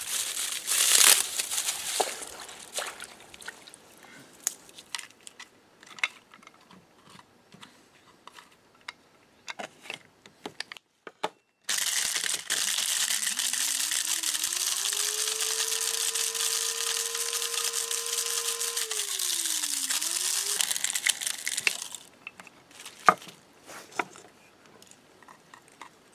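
Wet tobacco leaves and stems crinkling as they are handled in a bucket of water. Then a small electric grinder grinding tobacco runs for about ten seconds: its motor pitch rises as it spins up, holds steady, and drops as it winds down. A few sharp clicks follow near the end.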